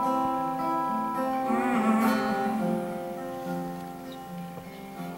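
Solo acoustic guitar playing an instrumental passage, its strummed chords ringing on and gradually fading.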